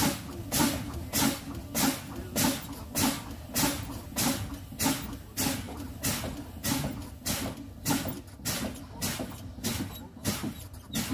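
Truck air brakes being fanned: the brake pedal is pumped over and over, and each application lets out a short sharp hiss of air, about two a second, quickening toward the end. The pumping bleeds the air pressure down to test the low-air warning and the spring-brake valves popping out.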